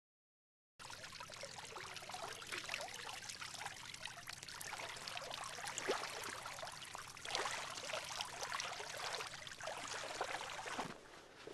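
River water splashing and trickling as a person wades through it, with many small drips and splashes. It starts suddenly about a second in and drops away near the end.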